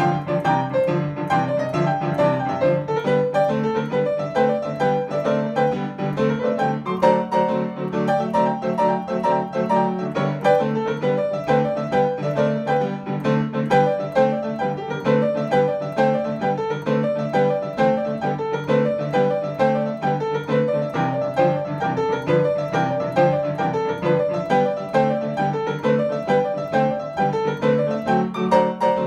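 Upright piano playing boogie-woogie: a steady, driving bass pattern in the left hand under fast right-hand figures.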